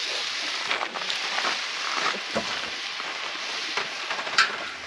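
Pork sizzling on a cast-iron cauldron lid (sotttukkeong) over a wood fire: a steady frying hiss with scattered small pops, and a sharp click near the end.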